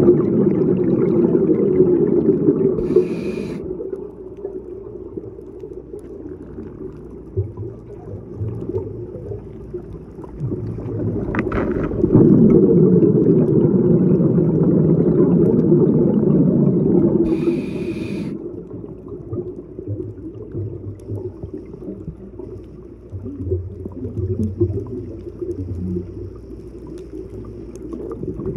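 Scuba regulator breathing heard underwater: long rumbling bursts of exhaled bubbles, each ending in a short hiss as the diver breathes in, twice, with a single sharp click about midway.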